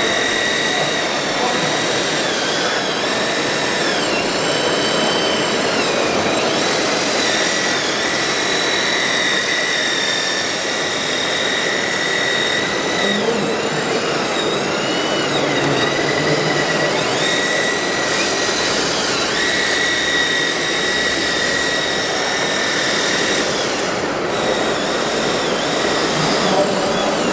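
A radio-controlled model machine's hydraulic pump and electric drive motors whining steadily. The pitch dips and climbs back several times as the hydraulic functions and drive are worked.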